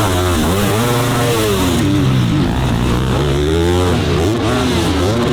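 Dirt bike engine revving, its pitch repeatedly climbing and falling as the rider works the throttle and gears on a motocross track.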